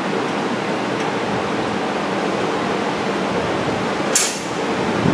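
Steady rushing noise with a faint hum beneath it, and one sharp click about four seconds in.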